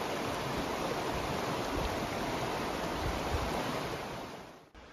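Fast mountain river rushing over rocks in a steady whitewater rush, fading out near the end.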